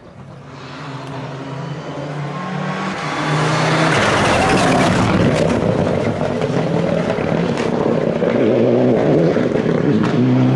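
Rally car engine at speed on a tarmac stage, growing louder as it approaches, passing close by about four seconds in, then staying loud as the car drives away.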